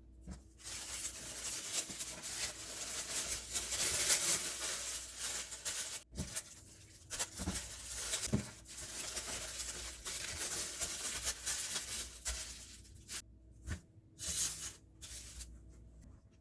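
Crinkly wrapping rustling and tearing in two long stretches of several seconds each, then a few short rustles near the end.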